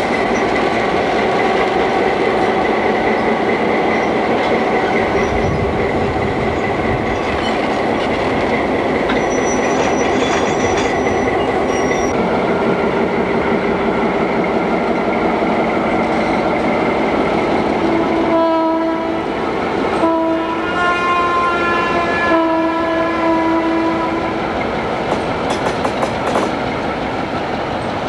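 Burlington Northern diesel locomotives rolling slowly past, their engines running steadily with wheels clicking over the rail joints. About two-thirds of the way through, the locomotive horn sounds in a series of blasts.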